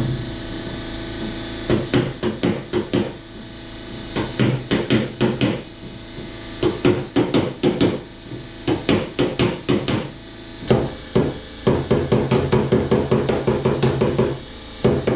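Body hammer striking the steel front fender of a Porsche 911 against a dolly held behind the panel, in quick runs of sharp metallic taps with short pauses between them. This is hammer-and-dolly work straightening a dent that had earlier been pulled out through drilled holes.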